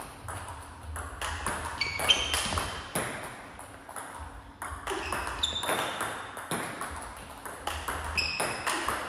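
Table tennis ball struck by bats and bouncing on the table in quick succession: sharp plastic clicks a few times a second, some with a brief high ringing ping.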